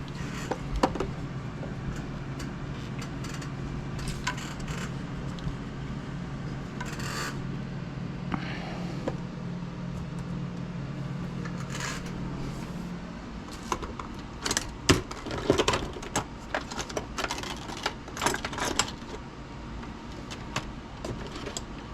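Small hard parts clicking and tapping as the generator mount is pushed and worked against the RC helicopter's frame. The mount does not slide in. A steady low hum runs under it and stops about halfway through, and the clicks come in scattered clusters after that.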